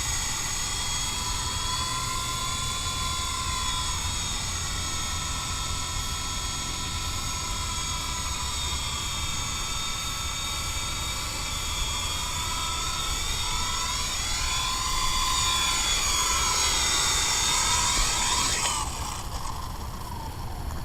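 MJX F45 RC helicopter's electric motor and rotor whining, the pitch wavering up and down with the throttle, then winding down and stopping near the end as it is powered off. Wind rumbles on the microphone.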